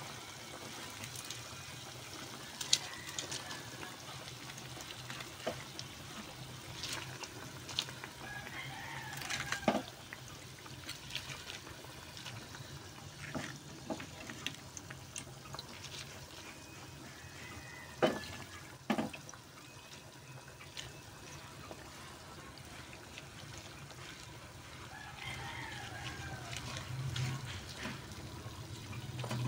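Vegetable broth boiling in a cooking pan, a steady bubbling hiss with scattered sharp clicks and knocks, the loudest about 18 seconds in.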